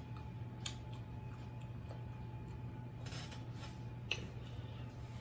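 Eating sounds from chicken feet and head-on shrimp: faint handling and chewing with a few small clicks, the sharpest about four seconds in, over a steady low hum.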